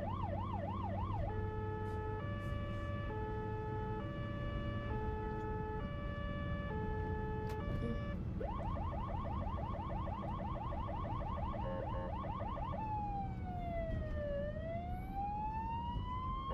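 Ambulance siren cycling through its tones. A fast yelp gives way to a two-tone hi-lo for several seconds, the yelp returns, and near the end a slow wail falls and rises again. Under it runs a low rumble of traffic.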